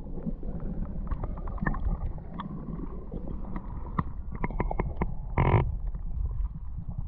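Creek water heard through a camera held underwater in its waterproof housing: a low, muffled rush of current with scattered clicks and knocks, and one brief louder gush about five and a half seconds in.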